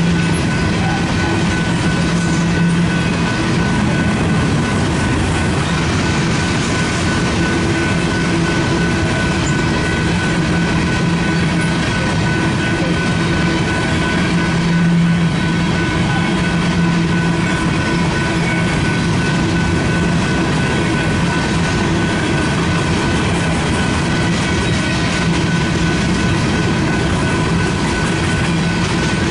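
Union Pacific train led by locomotive UP 1983 running steadily: a continuous rumble with a constant high whine on top.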